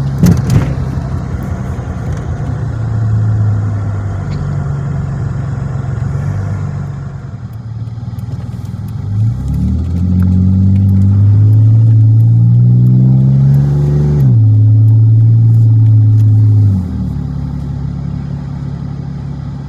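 Dodge Magnum's engine on the road: it runs at a steady cruise, then pulls harder with a climbing pitch from about halfway. The pitch drops sharply once, like a gear change, and the engine falls back to a quieter cruise near the end. A short knock sounds right at the start.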